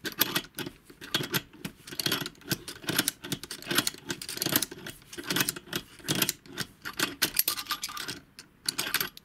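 Universal cam-action wrench ratcheting back and forth on a steel nyloc nut, its steel jaws clicking and rattling over the nut as they slip on each back-stroke. The clicks come fast and irregular, several a second.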